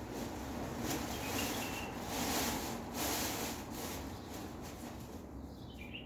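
Caged birds chirping briefly, a couple of short high calls about a second in and again near the end, over a steady rustling hiss.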